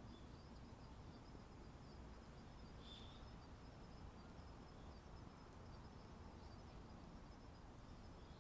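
Faint outdoor ambience: an insect trilling steadily in a high, pulsing band, with one short bird chirp about three seconds in, over a low steady rumble.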